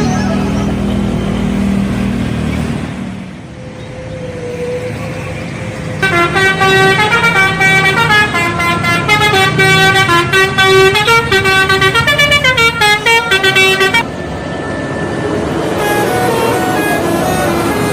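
Bus telolet horn playing a quick multi-note tune, loud from about six seconds in for some eight seconds, over a running bus engine. Softer horn notes carry on near the end.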